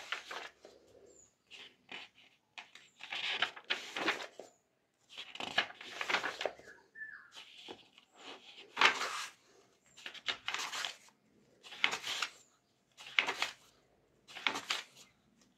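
Paper pages of a thick textbook being turned by hand, a dry rustle and flick of paper repeated roughly every second or so.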